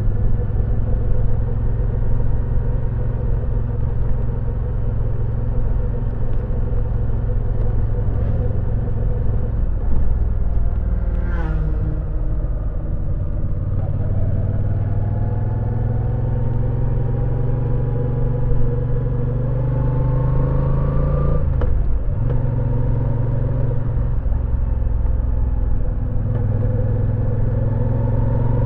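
Moto Guzzi V9 Roamer's air-cooled 853 cc V-twin running under way, heard from the rider's seat. The engine note drops about 12 seconds in, then rises steadily under acceleration, breaks off briefly a little after two-thirds through for a gear change, and rises again near the end.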